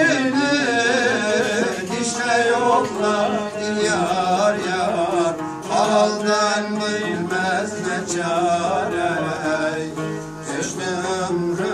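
A man sings a Turkish folk song (türkü) in an ornamented, wavering voice to the bağlama, the long-necked Turkish lute, played along with him.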